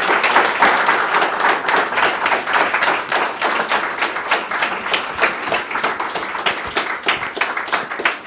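Audience applauding: a roomful of people clapping, densely at first and easing a little toward the end.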